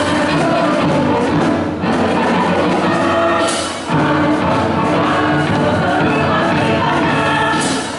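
A choir singing with musical accompaniment, in phrases a couple of seconds long with short breaks between them.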